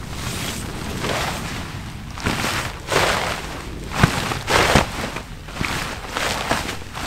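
Tent fabric rustling in a series of swishes as it is handled and packed, over wind rumbling on the microphone. Two sharp knocks come about four seconds in and again just after.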